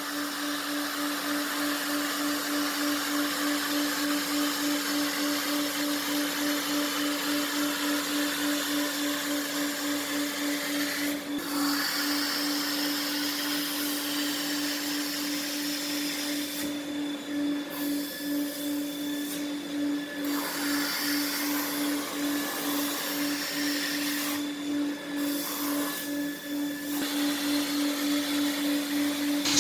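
Upholstery cleaning machine's vacuum motor running with a steady hum, with a loud hiss of suction as the tool works the fabric. The hiss breaks off briefly several times in the second half while the motor keeps running.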